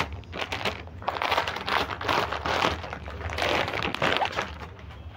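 Clear plastic packing bag crinkling and rustling in several bursts as a folded pair of trousers is handled and pulled out of it.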